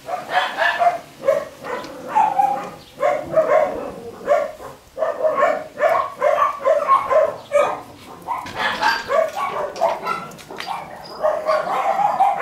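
Small dogs barking in a continuous run of short, high yaps, about two to three a second.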